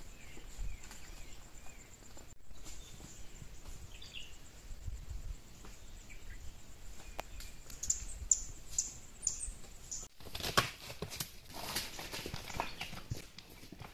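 Outdoor rural ambience with small birds chirping and a faint steady high whine. About ten seconds in it turns to louder, dense rustling and clattering.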